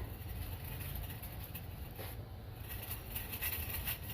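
Faint scraping that repeats from a pickup truck's front wheel as it turns: a loose brake pad retaining clip rubbing against the brake disc, a noise the owner had first taken for a worn wheel bearing.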